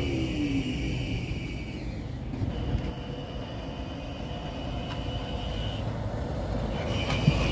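Electric tram on street track: a departing tram's falling motor whine dies away at the start. After that an approaching tram gives a steady low rumble with a thin, steady high whine over it.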